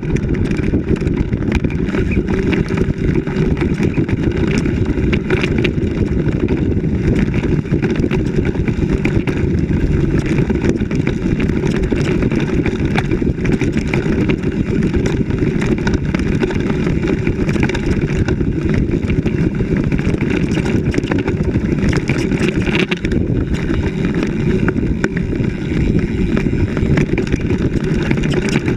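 Vehicle driving fast along a rough dirt forest track: a steady, heavy low rumble of engine and running gear.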